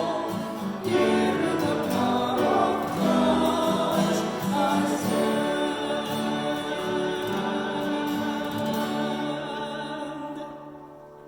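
Choir singing a hymn with sustained held notes, fading out near the end.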